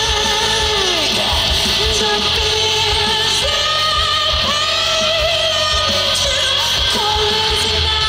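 Male singer belting a rock-style song live into a microphone over loud accompaniment with drums. He glides down on a note about a second in, then holds a long note with vibrato through the middle.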